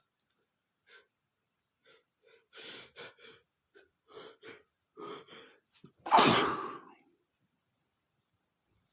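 A man's sneeze build-up: a run of short, catching breaths, then one loud sneeze about six seconds in.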